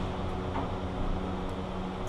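A machine running with a steady hum, a low tone and its overtones over a hiss, with faint taps about half a second and a second and a half in.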